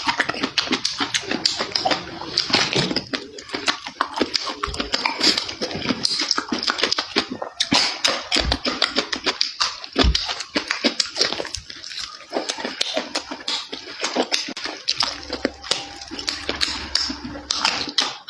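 A person eating close to the microphone: a continuous run of wet chewing, smacking and slurping mouth sounds.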